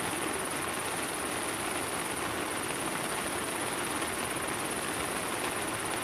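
Steady rain falling, an even, unbroken hiss.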